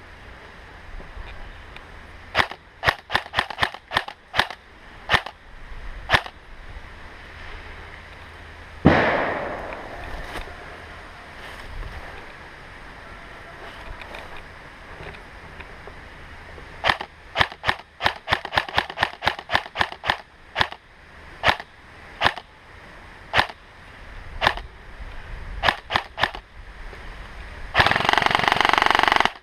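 Airsoft guns firing: scattered single shots and quick strings of shots. A loud bang about nine seconds in, and a dense harsh burst of noise just before the end.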